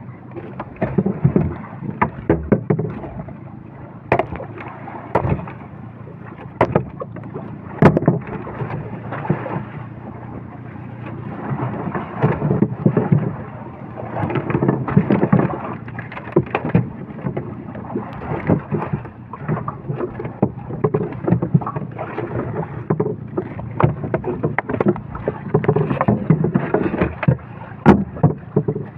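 Irregular knocks and clatter in a small fishing boat as a freshly caught tuna is handled, over a steady rumble of wind and sea.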